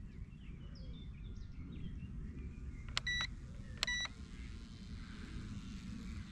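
Two short electronic beeps from a radio-control transmitter, about a second apart, each a clear steady tone. Under them runs a steady low rumble, with a few faint bird chirps in the first two seconds.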